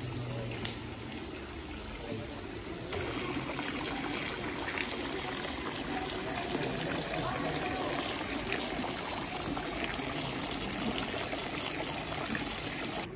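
Water from a fountain's spouts trickling and splashing into its stone basin, a steady rush of water that starts about three seconds in.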